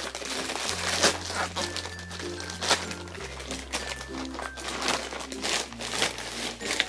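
Plastic poly mailer bag crinkling and rustling in the hands as it is opened and the contents pulled out, over background music with a slow bass line.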